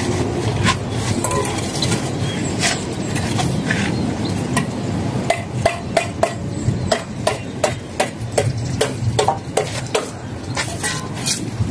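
Steel mason's trowel scraping and tapping on concrete hollow blocks and mortar, with a quick run of sharp clicks in the second half, over a steady low rumble.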